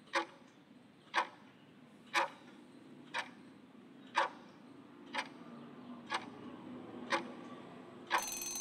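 Countdown timer sound effect ticking once a second, eight even ticks. Near the end a short ringing sound follows as the countdown runs out.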